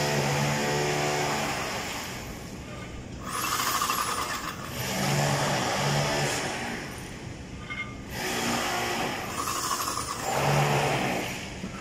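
Epoxy injection pump running in repeated surges, the noise swelling and fading every few seconds as it forces resin through the hose into a needle port in a cracked concrete slab.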